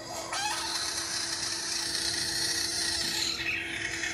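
Steady rasping hiss played through a tablet's speaker from the clip on screen. It starts about half a second in, over a faint steady hum.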